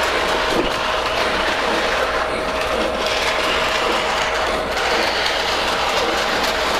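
Lionel Polar Express elf handcar running along O-gauge three-rail track: a steady mechanical whir and rattle from its small motor, gears and wheels, with a faint steady whine. It cuts off suddenly at the end.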